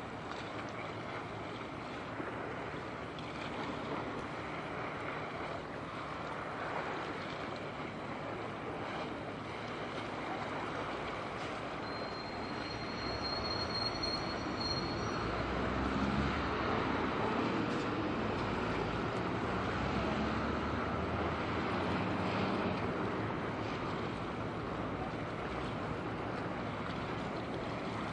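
Steady outdoor noise that swells into a low rumble for several seconds in the middle, with a brief thin high-pitched squeal a little before the rumble peaks.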